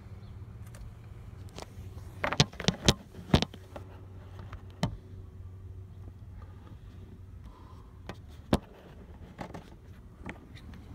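Handling noise from a hand-held phone camera: a quick run of sharp knocks and clicks about two to three and a half seconds in, then single knocks around five and eight and a half seconds. A steady low hum runs underneath.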